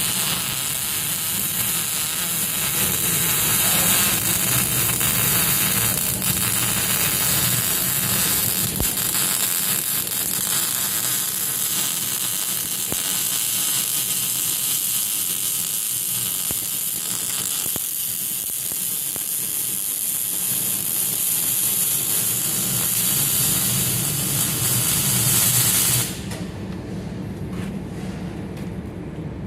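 Arc welding on the cast differential locker: a steady crackling, sizzling hiss of the arc laying down a weld pass. It cuts back abruptly near the end.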